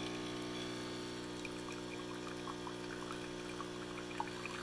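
DeLonghi Dedica EC680M espresso machine's vibratory pump buzzing steadily as two thin streams of coffee pour and patter into a mug. This is the newly replaced pump, now delivering water again.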